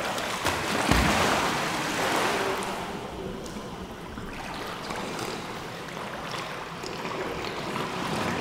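Pool water splashing and churning as a freediver goes under, with a low thump about a second in and the loudest part in the first three seconds, settling into a softer, steady watery hiss.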